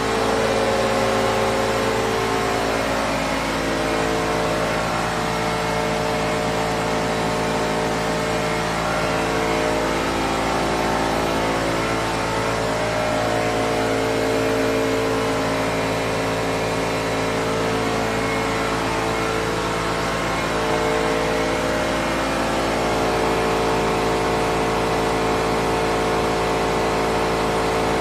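CNC waterjet machine running: a steady hum made of several pitched tones from the 60,000 PSI intensifier pump, with some tones wavering briefly now and then, over an even hiss.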